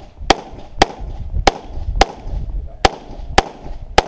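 Semi-automatic pistol firing seven shots in quick succession, one about every half second to second, each a sharp crack.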